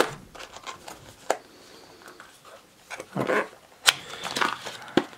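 A small cardboard product box handled and opened by hand: several sharp clicks and taps of the card, the sharpest right at the start, with brief scraping rustles around three seconds in as the tuck flap is pulled open.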